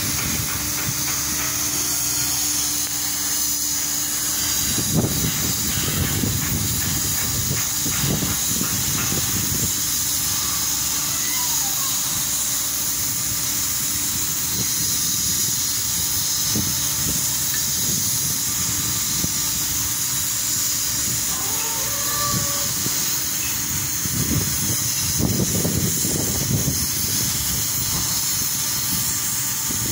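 Wind buffeting the microphone in low gusts, strongest about five seconds in and again near the end, over a steady hiss of small waves washing across the shallow shore.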